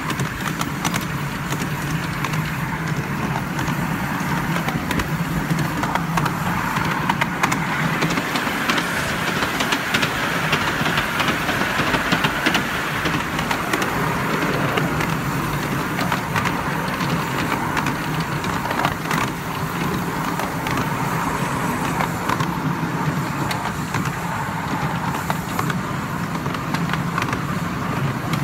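A 7¼-inch gauge miniature railway train running along its track, heard from on board: a steady running noise with many irregular clicks and clacks from the wheels on the rails.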